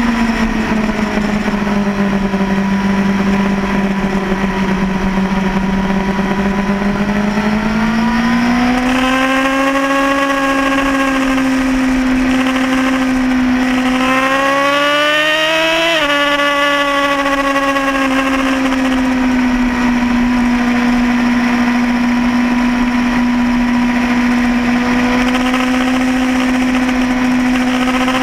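Triumph Daytona 675 three-cylinder race bike engine heard onboard at speed. The engine note sags slowly and then picks up. About 16 seconds in it climbs hard and drops sharply at an upshift from third to fourth gear, then holds a steady pitch. Wind rush runs under it throughout.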